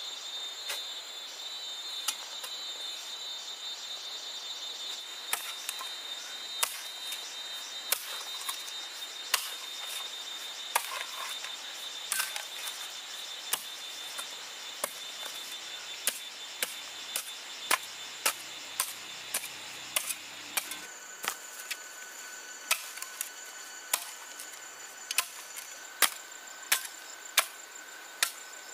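Steady, even chopping strokes, about three every two seconds, starting a few seconds in and growing louder near the end, over a continuous high drone of insects.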